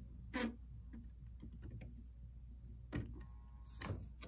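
Three faint, short taps of a soldering iron's tip against the rail and feeder wire as the wire is soldered to a model railway turnout frog, over a low steady hum.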